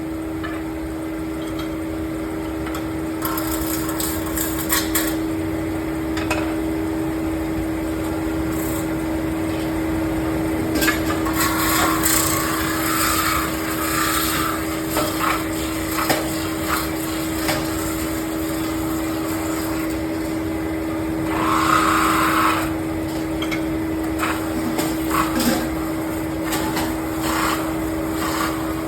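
Metal lathe running with a steady hum, broken by short stretches of scraping as the tool cuts and by scattered clicks and knocks from the work.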